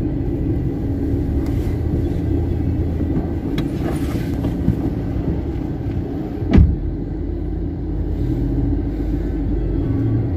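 Inside a taxi on the road: steady engine and road noise. A single sharp thump comes about six and a half seconds in.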